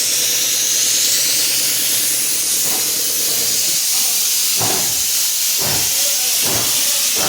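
A steady, loud hiss.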